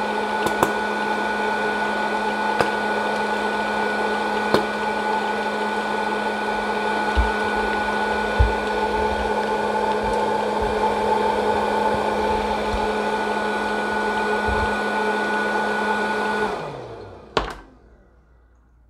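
Hot-air popcorn popper's fan motor running with a steady whir and hum, with a few sharp ticks and some low thumps. Near the end it is switched off and winds down, falling in pitch, followed by a single sharp click.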